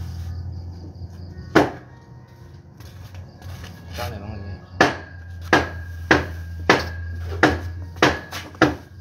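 Cleaver chopping roast pork on a chopping block: one hard chop about a second and a half in, then a steady run of chops about two every three seconds from about halfway. A steady low hum runs underneath.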